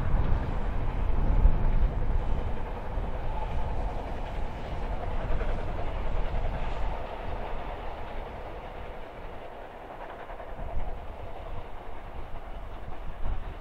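Narrow-gauge steam train running off into the distance, its rumble fading steadily.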